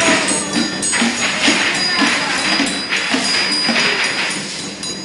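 Music with bright, jingling percussion struck in quick strokes and a few high ringing tones over it.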